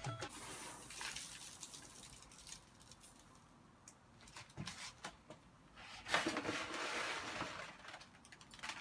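Dry rice grains poured onto a person lying in bed, pattering over the head, chest and duvet. There is a dry rustle just after the start and a louder, longer spell about six seconds in.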